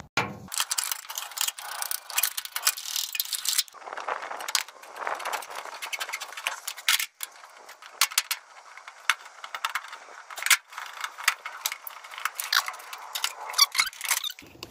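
Metal clicking and rattling of an adjustable wrench on the fuel line fittings of a fuel tank sending unit, in many short irregular clicks, with a denser scraping stretch about two seconds in.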